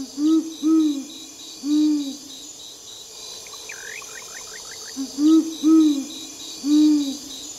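Great horned owl hooting: two phrases of deep hoots, each of about four notes with the last one longer, the second phrase starting about five seconds in. Insects trill steadily behind.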